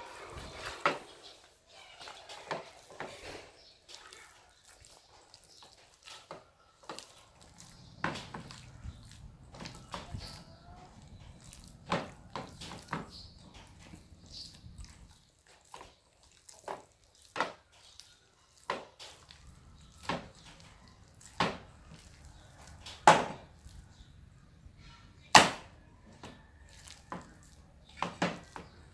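Knife chopping on a wooden cutting board: single sharp strokes at uneven intervals of one to two seconds, the loudest near the end.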